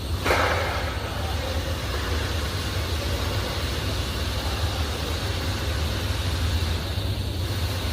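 TIG welding arc buzzing steadily over a low electrical hum, with a sharp crackle near the start.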